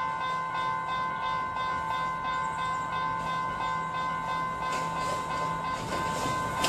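Level-crossing warning bell ringing rapidly and continuously while a diesel multiple unit approaches. The train's engine hum and rail noise grow louder near the end.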